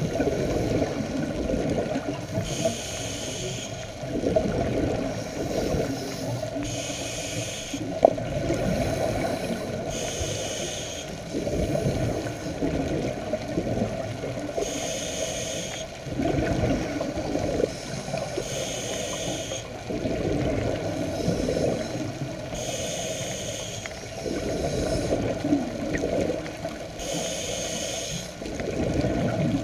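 Scuba diver breathing through a regulator underwater: a short hiss on each inhale alternates with a longer low burble of exhaled bubbles, in an even cycle that repeats roughly every four seconds.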